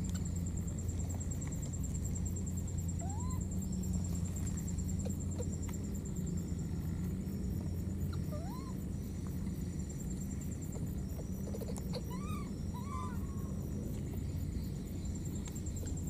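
Steady low hum under a continuous high, pulsing insect trill, with a few faint short rising squeaks from a small animal: one about three seconds in, one around eight seconds, and two or three close together near twelve seconds.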